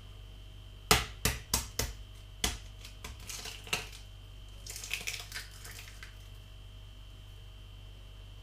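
A quick run of sharp taps and knocks, then lighter crackling and clicks, as preserved duck eggs (century eggs) and their packaging are handled and opened on a kitchen counter.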